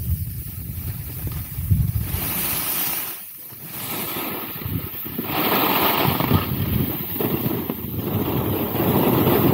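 Wind buffeting the microphone and skis hissing over packed snow during a downhill run. The sound dips briefly about three seconds in, then grows into a louder, brighter hiss from about five seconds in.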